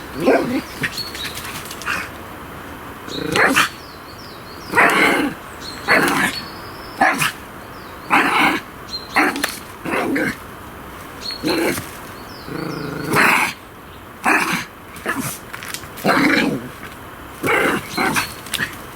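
A dog barking over and over in an excited, playful fit: a long run of sharp yaps, roughly one a second.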